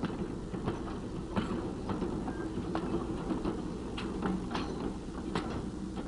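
Empty railroad gondola cars rolling slowly over a gap in the rail: a steady low rumble with irregular sharp clacks and knocks from the wheels and trucks.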